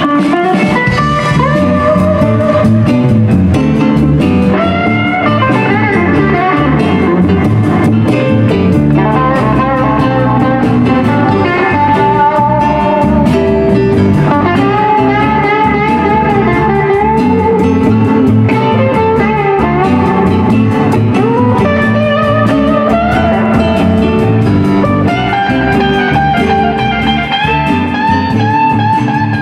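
Live blues band playing: an electric guitar takes the lead with bent, sliding notes over bass guitar and drums.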